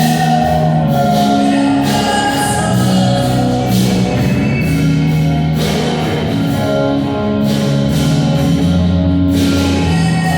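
Music played during a sound check: held chords over changing bass notes, with sharp hits every couple of seconds.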